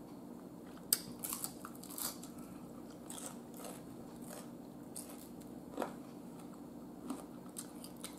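Close-up biting and chewing of crispy fried food, crinkle-cut French fries and fried chicken, heard as a string of short, sharp crunches, about eight of them spread irregularly. A faint steady hum runs underneath.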